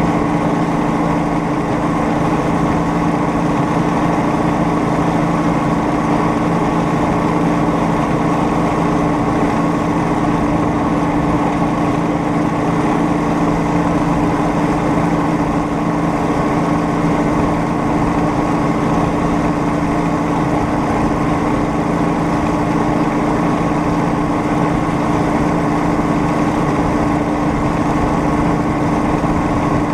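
Engine of a homemade rail speeder running steadily at cruising speed: a constant, unchanging drone.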